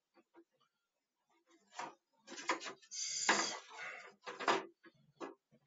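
Packaging and plastic parts of a new popcorn machine being handled: a few short knocks and clatters, with a longer rustle about three seconds in.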